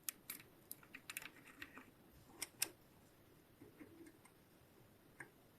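Faint, scattered light clicks and taps at an uneven pace, most of them in the first three seconds and only a few after that.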